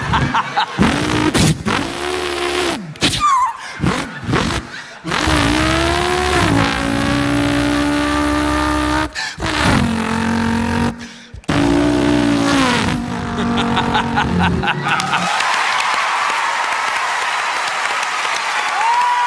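A man imitating a V8 Holden Torana with his voice into a microphone: engine revs that rise and fall in steps, broken by short pauses. About 15 seconds in, an audience breaks into applause.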